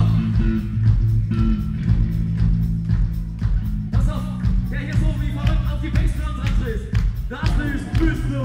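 Live rock band playing loud through a PA system, with a heavy bass line and a steady drum beat. Voices come in over the band about halfway through.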